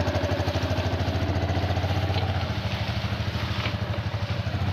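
A Yamaha 250 cc single-cylinder motorcycle engine running at low, steady revs, its rapid even firing pulses heard throughout.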